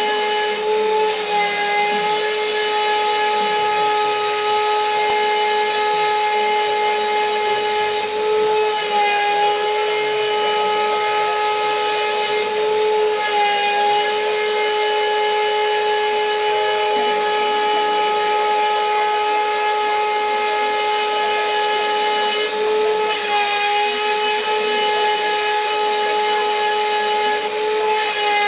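Roland CNC milling machine's spindle running with a steady high whine while its cutter mills out a quadcopter frame, with a hiss of cutting noise. Several times the pitch dips briefly and recovers.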